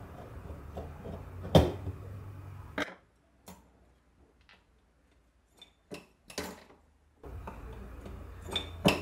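Sharp metal clicks and clinks of a screwdriver and small steel parts being worked loose on the head of an 1884 Singer fiddle-base sewing machine. The loudest click comes about a second and a half in. The middle few seconds are nearly quiet, with only a few light taps, and more clicks come near the end.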